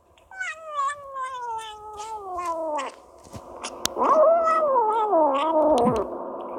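Kitten making long, drawn-out moaning calls while it eats, two in a row: the first slides down in pitch, the second wavers and then drops. Small clicks of chewing come through between and under the calls.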